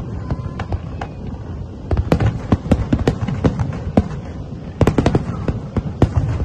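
Fireworks display: aerial shells bursting in rapid volleys of sharp bangs over a continuous low rumble. The bangs thin out for the first couple of seconds, then come thick and fast again.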